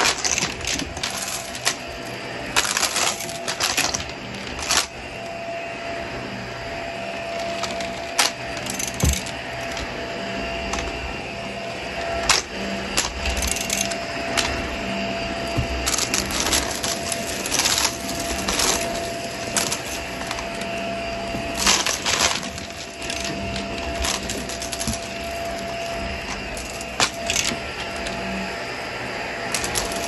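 Vacuum cleaner running over carpet with its brushroll mostly off, with a steady whine and hum. Frequent sharp clicks and rattles from grit and debris being sucked up through it.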